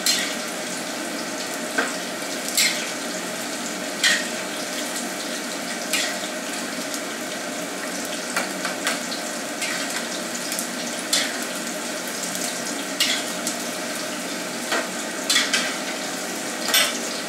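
Cornstarch-coated pork pieces deep-frying in hot oil with a steady sizzle, while a metal slotted spatula stirs them and knocks against the pan now and then.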